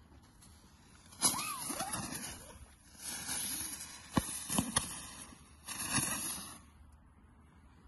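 Jumping jack firecracker going off: hissing, spraying bursts broken by several sharp cracks.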